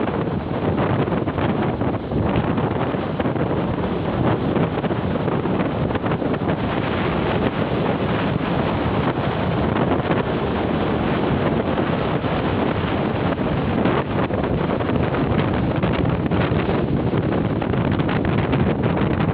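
Wind rushing on the microphone over the steady wash of small waves breaking on a sandy beach.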